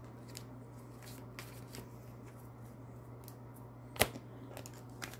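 Quiet handling of oracle cards: faint rustles and light ticks, with one sharp click about four seconds in, over a low steady hum.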